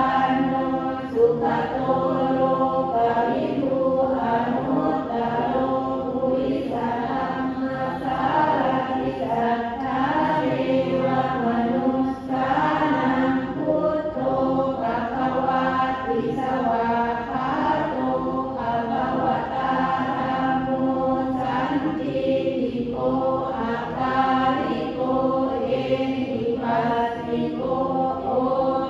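A group of voices chanting Buddhist verses in Pali together in a steady, even recitation, with short breaks for breath twice.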